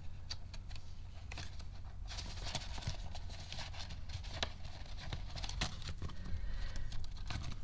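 Paper dollar bills rustling as they are handled and slipped into plastic binder envelopes, with page turns and scattered small clicks and taps. The rustling is busiest in the middle.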